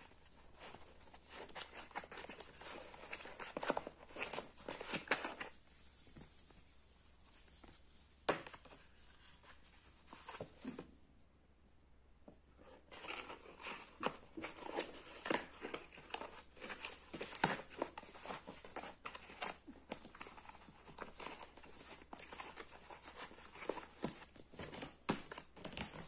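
Packaging crinkling and rustling with many small clicks and knocks as the contents of a gimbal's box are unpacked and handled. It goes quieter for a couple of seconds about halfway through.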